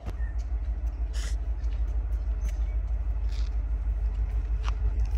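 Steady low rumble of wind buffeting the microphone, with a few faint clicks and knocks.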